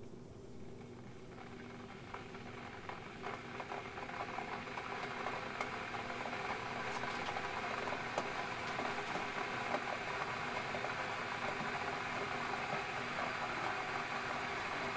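Russell Hobbs electric kettle heating water: a hiss that starts about a second in and grows steadily louder, with crackling ticks through the first half, then settles into a steady rushing as the water nears the boil.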